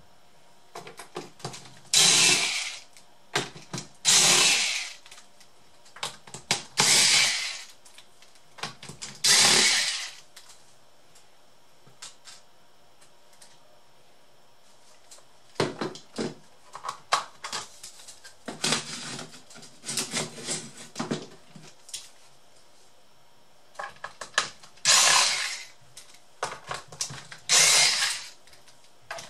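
Cordless electric screwdriver whirring in short bursts of under a second, about six times, as it backs screws out of a laptop's plastic bottom panel. Small clicks and rattling of plastic parts and screws come between the bursts, busiest in the middle.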